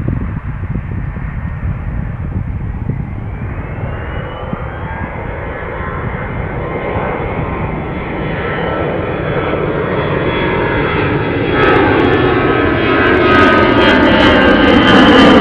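Airbus A320 jet airliner flying low and drawing closer, its engines growing steadily louder. A whine rises in pitch a few seconds in, and near the end several engine tones slide downward in pitch as it passes close by.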